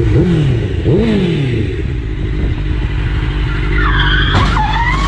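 Sport motorcycle engine running under wind rush, its revs rising and falling twice in the first two seconds. From about four seconds in, a high wavering squeal that falls in pitch, like tires skidding under hard braking, with a sharp click in the middle of it.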